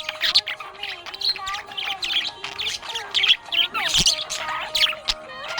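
Budgerigars chirping and warbling: a rapid, unbroken string of short chirps, squeaks and clicks over a steady held tone.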